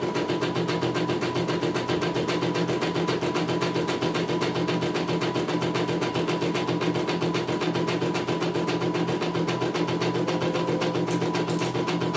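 CNY E900 computerized embroidery machine stitching out a design: a fast, even rattle of needle strokes that keeps up without a break.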